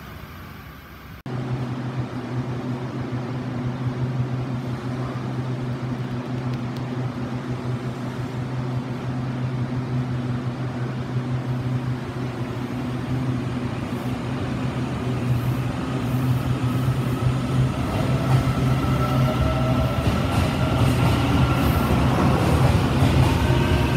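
Taiwan Railways EMU800 electric train with a steady low electrical hum while standing. About two-thirds of the way in it starts to pull away, and its traction whine rises steadily in pitch as it gathers speed and grows louder.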